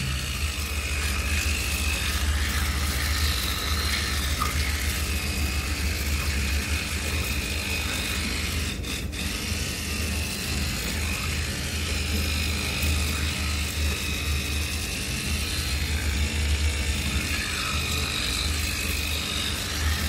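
Oral-B (Braun) rotating-oscillating electric toothbrush running while brushing teeth: a steady low motor hum with a brushing noise over it, at an even level.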